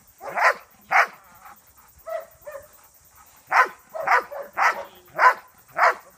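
A dog barking at a protection-training helper in a bite suit: two loud, sharp barks, a pause of about two seconds, then a run of five more at about two a second.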